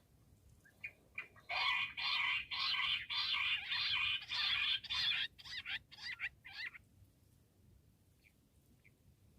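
Bush quail calling: a fast run of rapid repeated notes starts about a second and a half in and lasts about three and a half seconds, then breaks into a few separate notes that stop around seven seconds in. Faint short chirps follow near the end.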